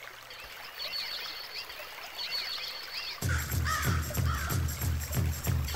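Intro of a Brazilian children's pop song recording: bird calls, repeated arching chirps, over a light hiss of jungle ambience. About three seconds in, a steady drum beat starts at roughly two to three strokes a second, with the bird calls going on over it.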